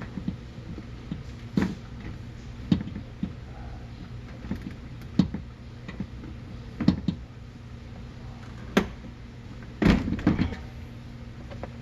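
Irregular clicks and knocks of hand work on a car's tailgate interior trim, plastic panels and clips being handled, about a dozen over a steady low hum, the loudest cluster near the end.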